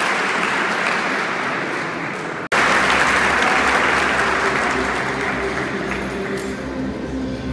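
Audience applauding. The applause breaks off for an instant about two and a half seconds in, then carries on while music with steady held notes comes in under it.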